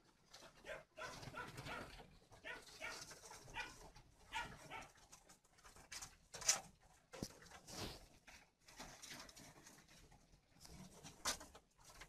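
Faint animal calls, short and repeated in little groups, with a few sharp clicks or knocks. The loudest click comes about halfway, and another comes near the end.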